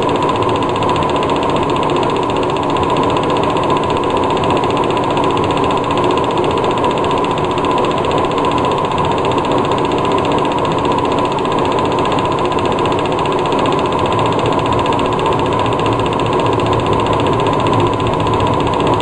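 Film projector running: a steady mechanical whir with a fast, even clatter from the film-advance mechanism and a constant tone underneath.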